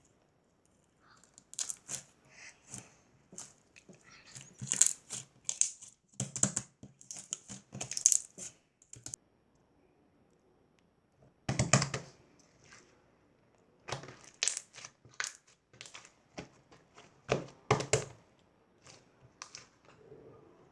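Irregular crinkling, rustling and clicking, like something being handled, coming in short clusters with a quiet pause of about two seconds near the middle.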